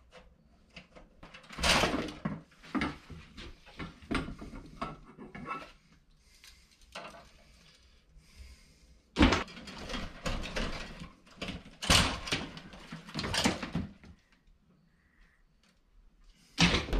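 Old sheathed electrical cable being cut at a breaker panel and pulled out through the wall framing, rustling and scraping in irregular bursts with a lull in the middle.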